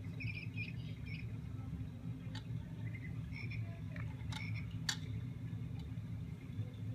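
Short, faint high-pitched chirps and squeaks scattered through, with a few sharp clicks as the hanging play-gym toys are batted and grabbed. All of this sits over a steady low hum.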